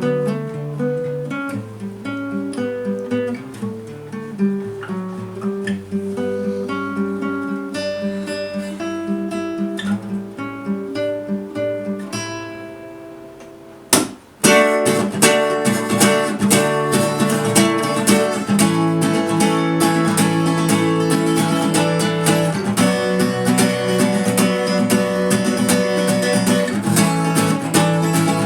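Acoustic guitar playing on its own: picked notes and chords that gradually fade down over the first half, then a sharp strike about halfway through and dense, louder strumming.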